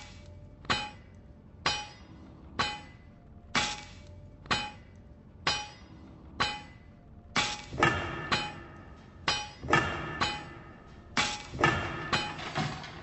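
Music intro made of metallic clanging hits on a steady beat, about one a second, each ringing on briefly. From about seven seconds in the beat grows busier, with extra hits between the main ones.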